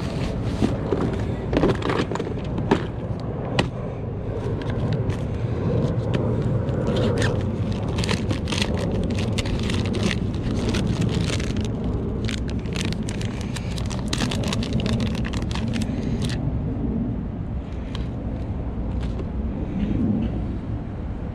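Plastic lure packages and tackle boxes being handled, a busy run of clicks and crinkles that thins out about three quarters of the way through, over a steady low rumble.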